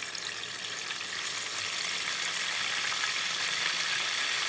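Chicken wings deep-frying in hot oil in a large pot: a steady sizzle with scattered crackles, growing slightly louder.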